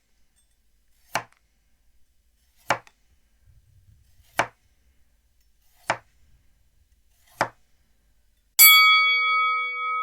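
A series of sharp single knocks, evenly spaced about a second and a half apart, then near the end a loud bell-like ding that rings on with a clear, lingering chime.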